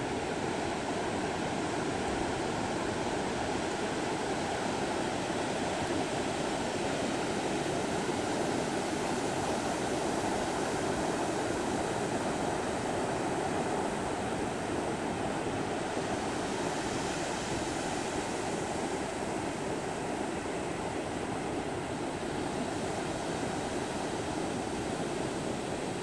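Ocean surf breaking offshore and washing up a sandy beach: a steady rushing, with the hiss of the wash growing a little brighter for a few seconds past the middle.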